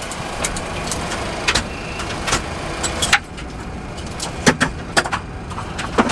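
Boeing 737-400 flight deck during engine shutdown: a steady background hum with a series of sharp cockpit switch clicks, about six spread through a few seconds, as the crew sets the panels. The background drops noticeably about three seconds in.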